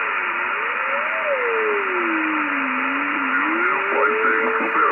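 Yaesu FRG-7000 shortwave receiver hissing with band static while its fine tuning is turned, a single whistle sliding down, up, down and up again in pitch as the knob moves. Garbled voice comes back in near the end.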